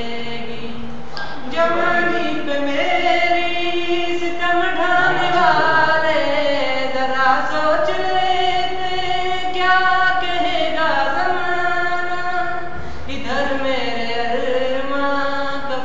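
A voice singing a slow melody in long held notes that bend and waver in pitch.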